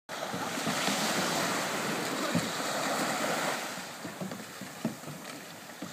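Small waves washing up a sandy shore, with wind buffeting the microphone and a couple of short low thumps.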